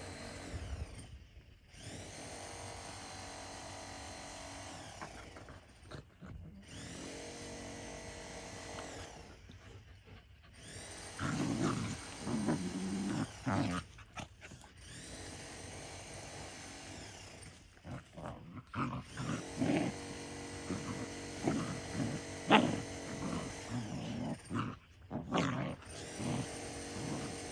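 Belgian Malinois-mix dogs growling and snarling in short bursts as they play-fight, mostly from about a third of the way in, with one sharper, louder cry near two-thirds through. Under it runs a steady background hum.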